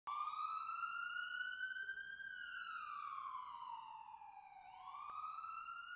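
A siren wailing: its pitch glides slowly up for about two seconds, falls over the next two and a half, then starts rising again near the end. A faint click about five seconds in.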